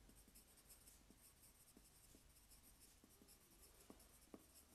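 Very faint scratching of a pencil writing on paper, with a few soft ticks as the letters are formed.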